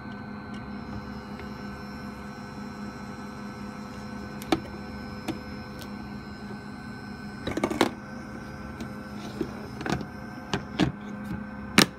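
Small air pump running with a steady hum. Scattered clicks and knocks from the sampling assembly being handled, with the loudest cluster about seven and a half seconds in.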